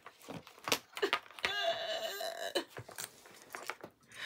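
Rummaging: objects being handled and picked up, a string of clicks and knocks, with a short pitched sound lasting about a second in the middle.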